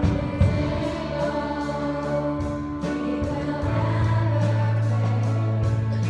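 A youth praise band playing a worship song live: young voices singing together over electric guitars and drums, with cymbals keeping a steady beat and a held low bass note coming in about halfway through.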